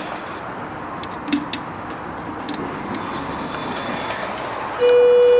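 A steady rumble with a few light clicks about a second in. Near the end, the Schindler 330A hydraulic elevator's electronic chime sounds one loud, steady tone.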